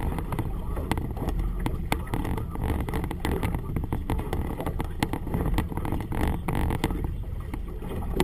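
Gusty wind buffeting the camera microphone on a small boat, a steady low rumble with frequent short slaps and knocks of choppy water against the hull.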